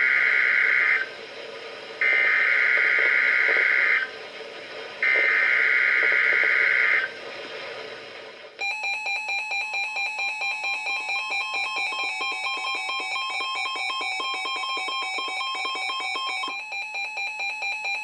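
NOAA Weather Radio emergency alert: three screeching bursts of the SAME digital header, each about two seconds long and about a second apart, then the steady 1050 Hz warning alarm tone. Over it the weather radio receivers sound their own alarm beeps, pulsing about twice a second. The 1050 Hz tone cuts off near the end while the receivers keep beeping.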